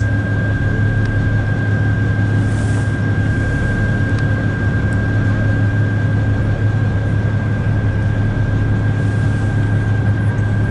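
Boat engine running at a steady speed, a constant low drone with a thin, steady high whine above it.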